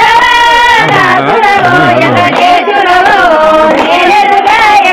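A group of women singing a Bathukamma folk song with rhythmic hand-clapping, the circle dance song of the Bathukamma festival.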